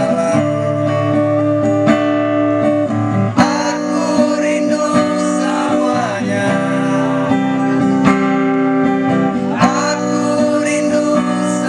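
A man singing into a hand-held microphone, accompanying himself on a strummed acoustic guitar.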